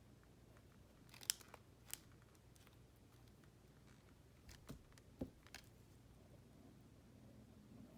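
Near silence broken by a handful of short, light clicks and taps: one sharp click about a second in, another shortly after, then a small cluster of three or four around the middle.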